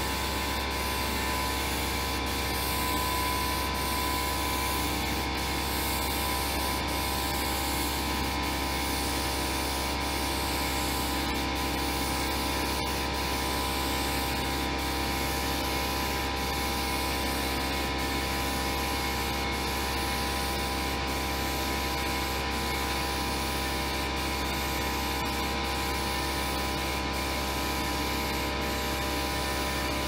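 HVLP spray gun hissing steadily as it sprays pre-catalyzed lacquer, over the constant drone of its air supply.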